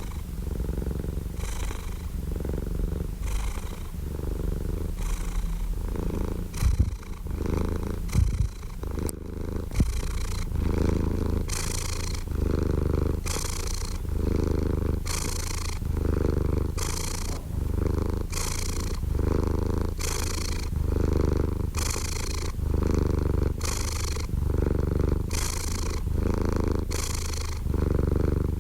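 Domestic cat purring close up, in a steady rhythm that swells and eases with each breath about every second and a half. A few brief knocks come between about seven and nine seconds in.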